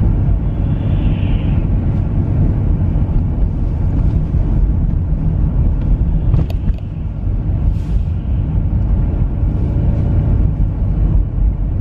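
A car driving, with a steady low rumble of engine and road noise. There is a brief click about six and a half seconds in.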